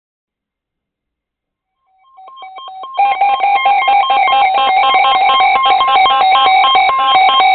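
A rapid, repeating sequence of electronic tones, like a ringtone melody, that fades in about two seconds in and then runs loud and steady.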